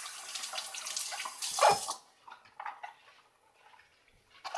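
Kitchen tap running as red cabbage leaves are rinsed under it, with a brief louder burst just before the water stops about two seconds in. After that, only a few faint knocks.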